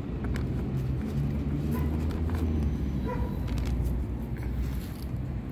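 A motor vehicle passing: a low engine rumble that swells and then fades, with a few faint clicks.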